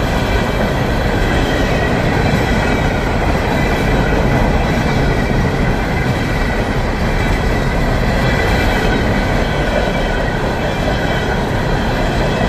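Freight train rolling past at close range: a continuous loud rumble of wheels on the rails, with steady high-pitched ringing over it.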